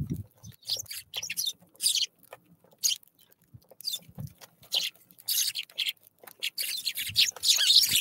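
A flock of Eurasian tree sparrows chirping in quick, scattered bursts of short, sharp calls that grow busier near the end, with a few soft low thumps in between.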